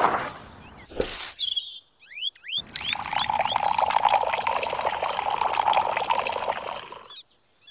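Water poured from a small metal toy bucket into an aluminium drink can, a steady splashing pour lasting about four and a half seconds that cuts off near the end.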